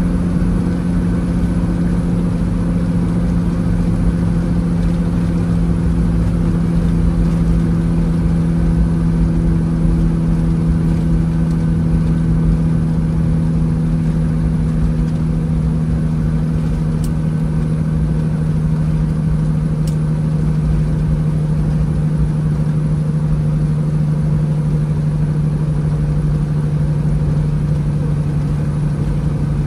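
1998 Peterbilt 379 semi truck's diesel engine droning steadily at highway cruise, heard from inside the cab. Its pitch eases slightly in the last third.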